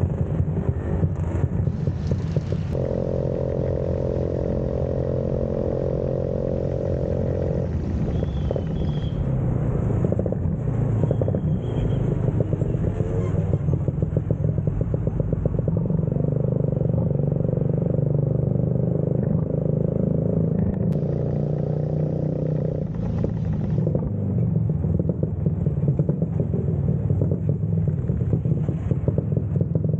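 Vespa scooter engine running steadily while riding along a road.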